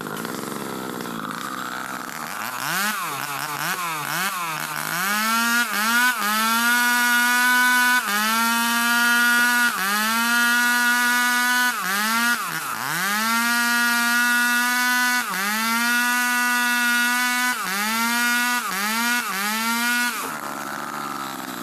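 Two-stroke chainsaws ripping a long ulin (Bornean ironwood) log lengthwise. The engines rev unevenly at first, then hold high speed in the cut with short dips every couple of seconds and one deep drop about 13 seconds in, easing off near the end.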